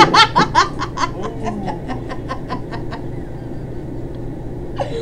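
A woman laughing hard in quick, breathy bursts that slow down and fade out over about three seconds.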